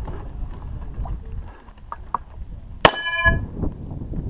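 A single pistol shot about three seconds in, followed by a short metallic ring from a steel target being hit.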